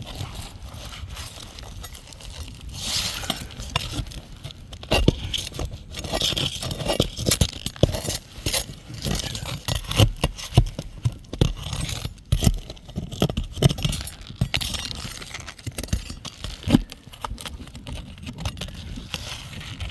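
Asphalt roof shingles being lifted and roofing nails worked out with a metal tool: irregular scraping with sharp clicks and clinks.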